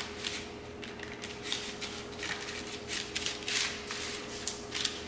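Parchment paper crinkling and rustling in short, irregular bursts as hands set a dough ball down on a lined baking tray and press the paper flat, over a steady faint hum.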